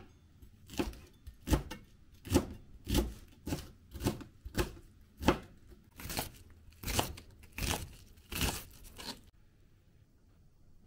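Kitchen knife chopping vegetables on a plastic cutting board, green pepper and then onion, with about a dozen slow, even strokes, one every half-second or so, each knocking against the board. The chopping stops about nine seconds in.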